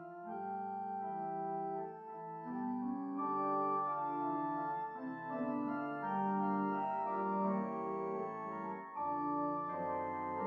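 Organ playing a slow prelude of sustained chords, each held for a second or more before moving to the next.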